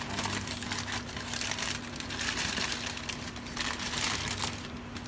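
Packaging crinkling and rustling as it is handled during unpacking, with many small crackles, over a faint steady low hum.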